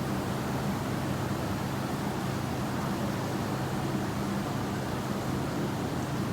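Steady rainfall: an even, unbroken hiss of rain with a low rumble underneath.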